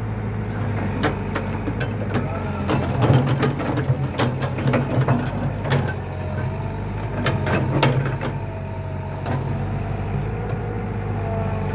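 A heavy diesel engine idling steadily, with a run of sharp metallic clanks and clicks from about a second in until about eight seconds in, as of metal parts being knocked and handled during track work.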